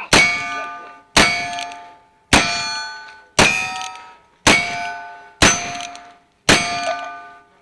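Great Western single-action revolvers fired one after the other at steel plate targets, seven shots about a second apart. Each shot is followed at once by the steel plate's ringing clang, which dies away before the next shot.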